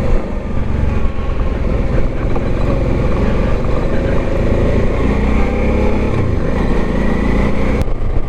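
Motorcycle engine running in first gear on a rough road, with its pitch shifting a little, over steady wind and road noise.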